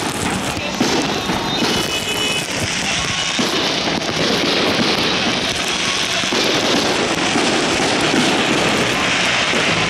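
Aerial fireworks display: a dense, continuous crackle and popping of bursting shells, steady throughout.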